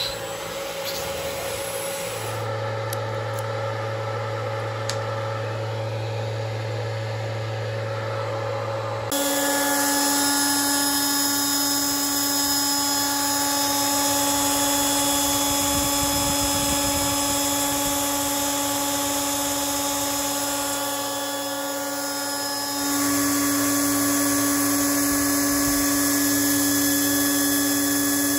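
The spindle of a 5.0 Robotics Model 8 CNC router milling 20 mm C250 aluminium plate with an end mill: a steady high whine mixed with cutting noise. The pitch and loudness shift abruptly twice, about a third of the way through and again about four-fifths of the way through, with a louder, steadier whine after the first shift.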